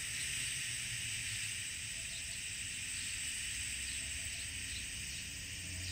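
Steady high-pitched hiss of outdoor garden ambience, even and unbroken.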